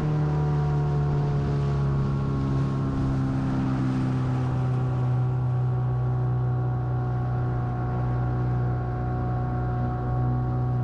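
Dinghy's outboard motor running at a steady throttle, its drone holding one even pitch.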